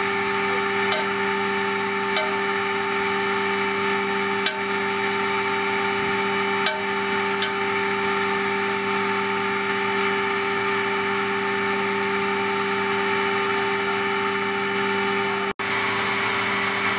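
Steady, loud whining drone inside an MV-22 Osprey's cabin from its running engines and drive system, with a few faint metallic clicks in the first half as hands work on the minigun mount.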